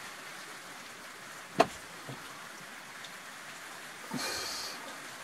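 Handling sounds from a small plastic engraver held in the hands, over a faint steady hiss: one sharp click about one and a half seconds in and a brief rustle about four seconds in. The engraver's motor is not running.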